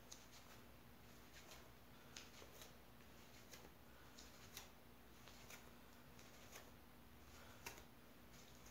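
Faint, short squelches and slaps about once a second as a bare foot treads and presses a mound of white porcelain clay body, wedging it by foot. A faint steady hum lies underneath.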